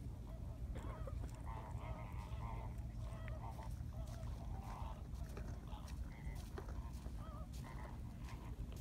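Wind buffeting the microphone as a steady low rumble, with faint wavering calls coming and going above it.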